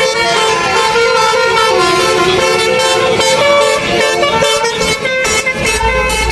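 Telolet basuri bus horns playing a melody of quickly changing tones, several horns sounding together. A low rumble comes in near the end.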